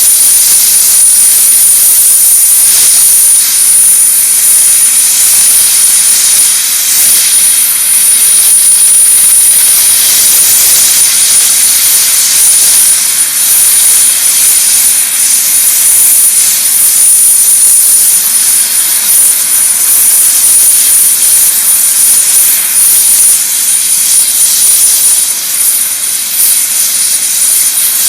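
Medevac helicopter's turbine engine running, a loud steady rushing noise with a constant high-pitched whine.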